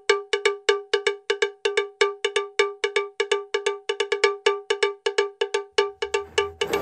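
Background music: a looping, bell-like struck percussion pattern at one pitch, about four to five quick hits a second. A rushing swoosh builds near the end.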